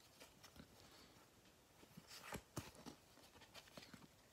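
Near silence, broken by a few faint ticks and rustles of a stack of Pokémon trading cards being shuffled through by hand, most of them a little past the middle.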